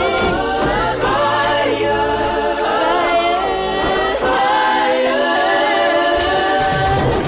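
Music: layered choir-like vocals singing without much accompaniment, with a heavy bass beat dropping in at the very end.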